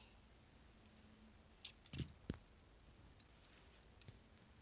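Near quiet, broken by three quick clicks of a pair of scissors about two seconds in.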